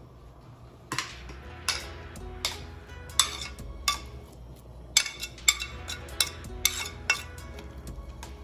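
Metal utensils knocking and clinking against cookware: about ten sharp, ringing knocks, well under a second apart, over a low steady hum.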